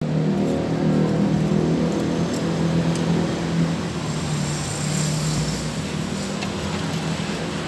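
A motor vehicle engine running steadily over street traffic noise. Its low hum fades after about five seconds.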